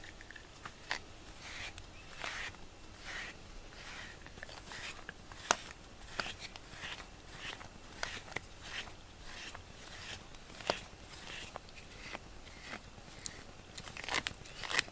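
Grooming brush stroked repeatedly through a cat's fur: a short rustling scrape about once or twice a second, with a few sharp clicks, the loudest near the end.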